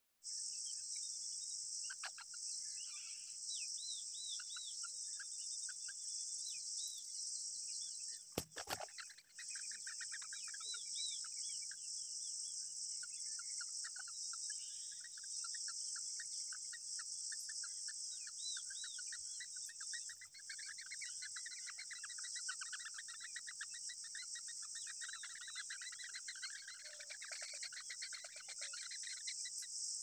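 Rufous treepie nestlings begging with rapid, repeated high chirps, sparse at first and becoming a dense, continuous run from about halfway, over a steady high-pitched drone of insects. A single sharp knock about a third of the way in.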